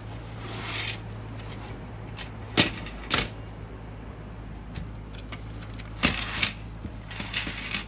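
Hard plastic clicks and knocks from the frame and roller of an HP CR278A printhead cleaning cassette being handled, with the rustle of its used cleaning cloth being pulled through. There are two pairs of sharp clicks, a few seconds apart.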